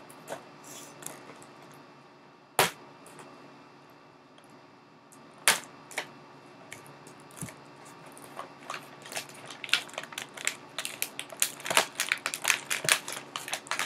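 Small plastic toy pieces and packaging being handled: scattered clicks and taps, with two sharper knocks early on, then a quicker run of clicks and crackles from about eight seconds in.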